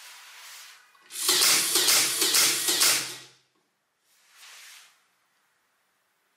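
LEGO EV3 motor-driven toy rifle firing a burst: the EV3 motor whirs for about two seconds with rapid clacking from the firing mechanism. A shorter, fainter burst of noise comes about a second later.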